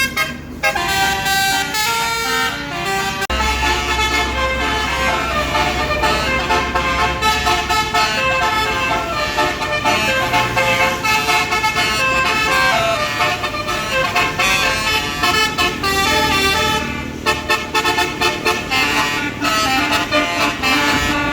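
Tour bus basuri telolet horn, an electric multi-trumpet horn, playing a tune in held, stepping notes. A diesel engine's low rumble runs beneath it for part of the time.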